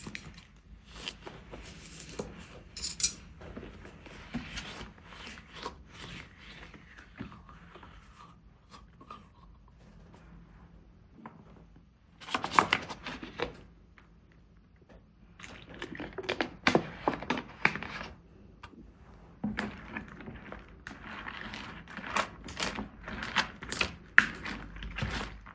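Slime being handled and squeezed by hand: clusters of crackling, clicking squishes, with a couple of quieter pauses in the middle.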